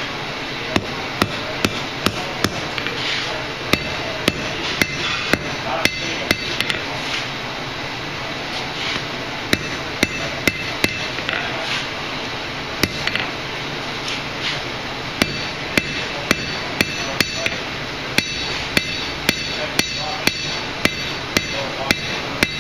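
Blacksmith's hand hammer striking red-hot steel on an anvil while drawing down a tong blank: a series of sharp, ringing blows about two a second, with a couple of short pauses.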